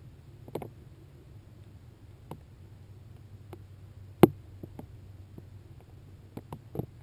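Scattered light clicks and ticks from a high-altitude weather balloon's camera payload, with one sharper click about four seconds in, over a faint steady low hum.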